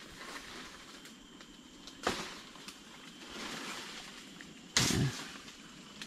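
Rustling and brushing in forest undergrowth, with a sharp scuff about two seconds in and a louder knock or bump just before the end.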